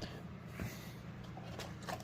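Light handling noises of smoke alarms being set out on a table: a few soft clicks and rustles, about three of them in the second half, over a steady low hum.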